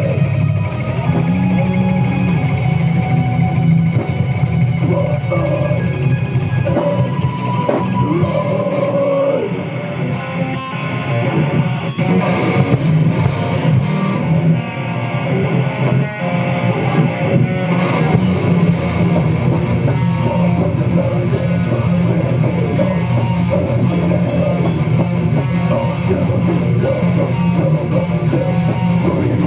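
Live heavy metal band playing, with distorted guitars and a drum kit. About eight seconds in, the band drops to a sparser passage for about ten seconds, then the full band comes back in.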